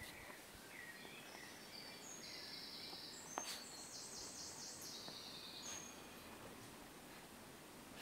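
A songbird singing a high, trilling phrase of quickly repeated notes, about two to five seconds in, over faint outdoor background noise. A single sharp click sounds about three and a half seconds in.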